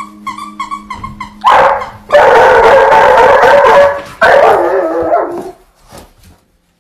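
A dog vocalising loudly: a quick run of short high yips, then long drawn-out howls with a wavering pitch, each lasting a second or more.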